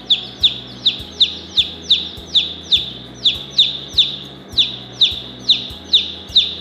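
A two-day-old chick peeping loudly and without a break: short, falling peeps in an even string, about three a second.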